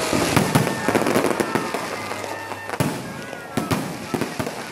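Aerial fireworks shells bursting in a rapid, irregular series of bangs over a steady crackle, with sharp bangs near the start and about three seconds in.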